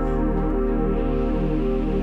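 Ambient music for percussion and electronics: a dense, steady drone of many sustained tones, with low notes pulsing slowly underneath and no distinct strikes.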